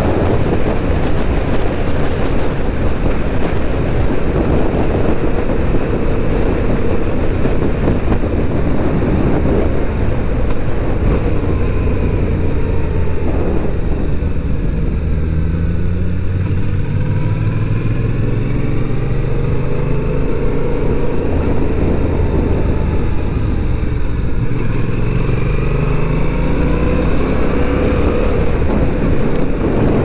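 Wind rushing over a helmet-mounted camera on a moving motorcycle, with the bike's engine showing through. In the middle the engine's pitch falls and rises again twice as the rider eases off and accelerates through a turn.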